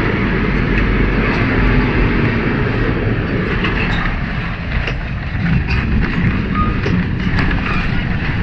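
Tram running on its rails: a steady, loud rumble with scattered clicks and rattles.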